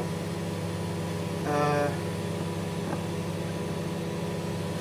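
Steady low mechanical hum of a running kitchen appliance. A short pitched tone sounds about one and a half seconds in.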